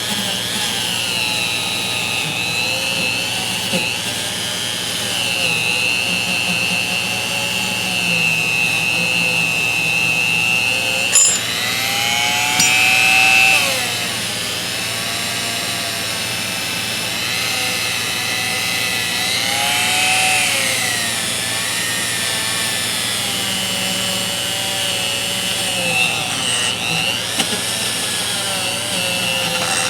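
Dremel rotary tool running at high speed against the metal of a ratchet part, cleaning off stain and dried grease. Its whine wavers and dips in pitch as it is pressed on. There is a sharp click about 11 seconds in, followed by a louder stretch of a couple of seconds.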